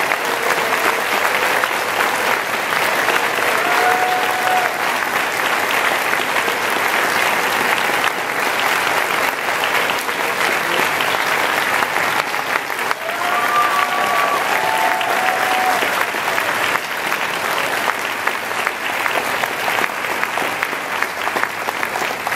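Audience applauding steadily, with a few short cheers from the crowd a few seconds in and again about halfway through.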